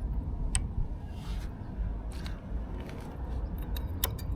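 A few sharp metallic clicks and light scrapes, spaced irregularly with a cluster near the end, as new front brake pads are fitted into a motorcycle brake caliper. A steady low rumble runs underneath.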